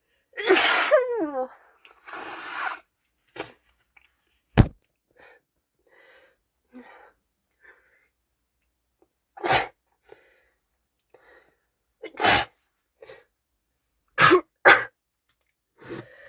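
A woman with a head cold sneezing again and again, five sneezes spread out with quiet gaps between; the first is voiced with a falling pitch. A single sharp thump comes about four and a half seconds in.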